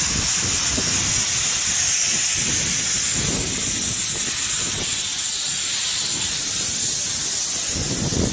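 Small narrow-gauge saddle-tank steam locomotive (Hunslet quarry engine Alice) hissing loudly and steadily as steam blasts from its open cylinder drain cocks while it moves slowly past, with a low rumble of the engine and wagons underneath.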